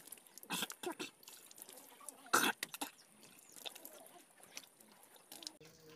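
A man rinsing charcoal out of his mouth over a pot of water: several short spits and splashes, the loudest about two and a half seconds in, with water dripping into the pot.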